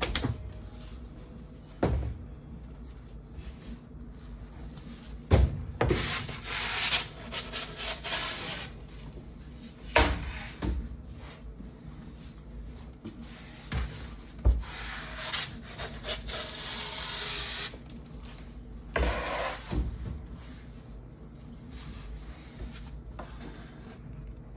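Loading a deck oven: a wooden baguette loading board scraping and sliding over the stone decks in three longer stretches, with several sharp knocks from the door handle, the door and the board.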